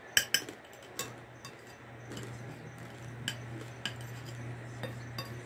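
Metal fork clinking and scraping against a glass bowl of farofa, in sharp separate clicks. The loudest pair comes right at the start, then single clinks follow every second or so. A low steady hum comes in about two seconds in.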